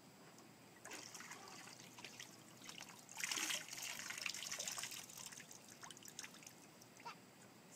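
Water splashing and trickling off a small plastic chair lifted out of a shallow plastic kiddie pool. The sound is loudest a little past three seconds in and then dribbles away.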